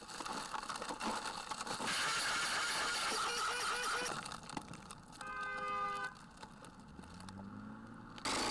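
Aerosol fart-spray can inside a glitter-bomb package hissing as it fires, loudest in the first four seconds. A short horn-like tone follows about five seconds in.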